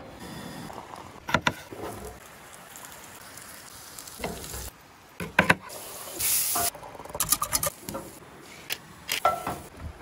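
Camp cooking: cookware and utensils clinking and knocking at irregular intervals while breakfast is started, with a brief hiss about six seconds in.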